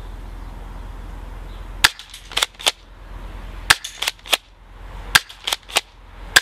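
M47B spring-powered airsoft shotgun being fired and pumped. It gives four quick groups of sharp clacks about one and a half seconds apart, starting about two seconds in. Each group is a loud snap of the shot followed by a few smaller clicks as the pump is racked to cock the spring for the next shot.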